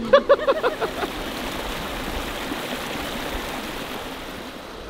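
Steady rush of a shallow mountain river running over rocks, an even hiss of flowing water, with a short burst of a woman's voice in the first second.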